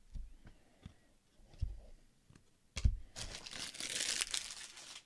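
Plastic wrapping crinkling for about a second and a half as it is gathered up off a tabletop, after a few soft knocks and one sharp knock of things set down on the table.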